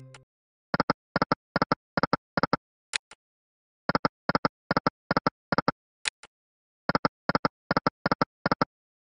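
Slot machine game sound effects: a music sting cuts off, then short double clicks come five at a time as the reels stop one after another, each group followed by a brighter tick as the next spin starts, about three spins in a row.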